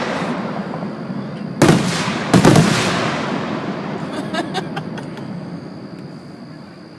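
Aerial fireworks going off: two loud bursts about a second and a half and two and a half seconds in, each dying away in a long fading rumble, followed by a few faint crackling pops around the middle.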